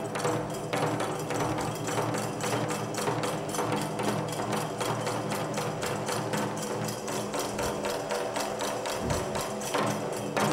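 Nanbu kagura accompaniment: a fast, even beat of percussion strikes led by the taiko drum, over steady held tones.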